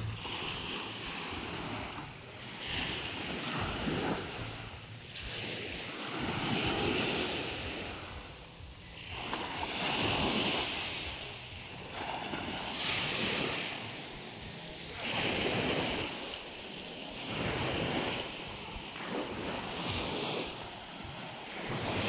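Small waves breaking and washing up a sandy beach, the surf swelling and ebbing about every two to three seconds.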